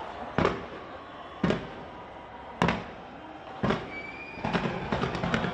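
Fireworks exploding overhead: four loud bangs about a second apart, then a quick run of smaller crackling pops near the end.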